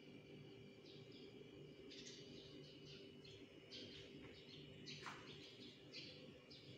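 Near silence with faint bird chirps, short calls repeating every second or so, over a low steady hum of room tone.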